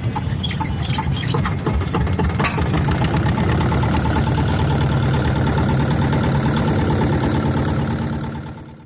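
A loud, steady low rumble with rattling clicks in the first couple of seconds, fading out near the end.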